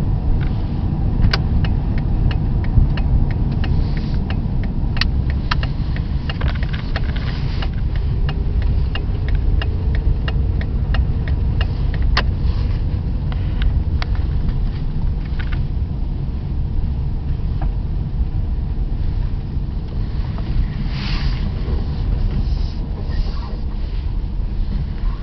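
A vehicle driving: a steady low rumble of engine and road. A run of sharp clicks or rattles comes a few times a second through the first half and thins out after that.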